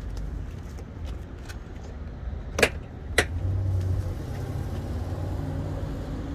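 Two sharp clicks about half a second apart over a low steady rumble.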